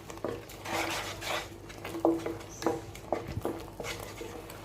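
A spoon stirring and scraping thick masala in a small kadai, with irregular clinks and taps against the pan.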